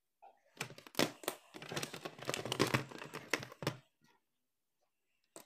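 Handling noise from the opened mixer grinder: its plastic housing and wires being moved about, an irregular clatter and rustle with a few sharp clicks, stopping about four seconds in.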